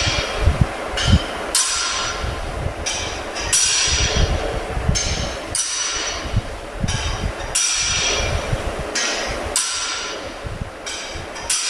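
Clock tower tick-tock sound effect: paired ticks with a ringing tail, a softer tick followed by a louder one, repeating about every two seconds over a low rumble.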